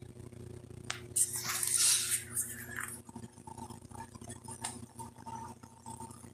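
Handling noise from a phone held up close: a click about a second in, then about two seconds of fingers rubbing across the microphone, and a few sharper clicks later, over a steady low hum.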